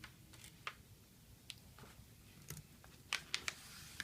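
A sheet of paper being handled and folded: scattered faint crinkles and crackles, with three sharper crackles in quick succession about three seconds in.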